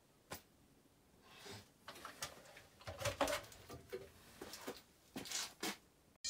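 Faint, scattered light knocks and rustles of handling as a 1/10 Tamiya RC car is set down on a wooden workbench and a person moves about, a little busier from about three seconds in.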